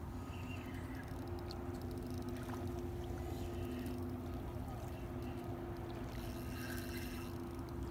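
A steady low motor hum on two held tones, unchanging throughout.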